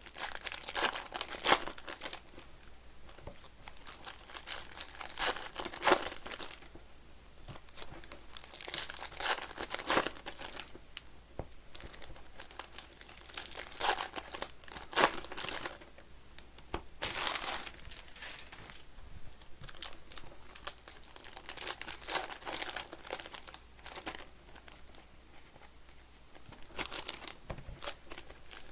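Trading-card pack wrappers being torn open and crinkled by hand, in irregular bursts of rustling every few seconds, as hobby packs of baseball cards are opened.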